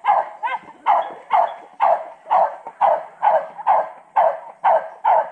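A dog barking over and over at an even pace, about two barks a second, while waiting to be fed.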